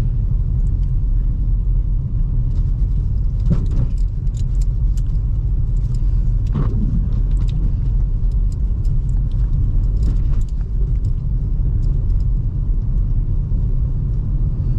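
Steady low rumble of a 2005 Toyota Highlander with its 3.3 L V6, the vehicle running on a snowy road. A few faint clicks come through now and then.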